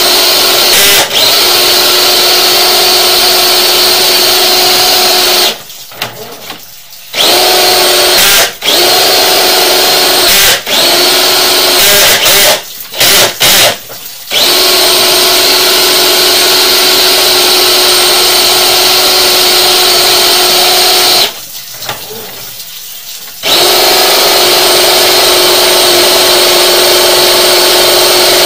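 Drill spinning a RIDGID FlexShaft drain-cleaning cable inside a blocked drain pipe, running in long stretches with a steady whine. It stops briefly a few times, with several quick on-off bursts near the middle and a two-second stop past the two-thirds mark.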